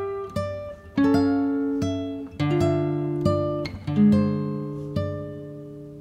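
Background music: a slow picked melody on a plucked string instrument, each note or chord starting sharply and ringing out as it fades, about one a second.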